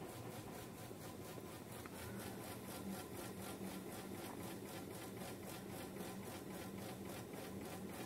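Faint steady hum of a Whirlpool top-load washing machine's tub spinning down after the spin cycle, with a faint regular pulsing as its revolutions fall.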